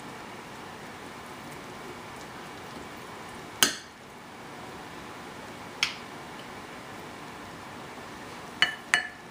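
A serving spoon knocking against a ceramic dish and plate while curry is served: four sharp clinks, the loudest about a third of the way in and two close together near the end, over a steady low hiss.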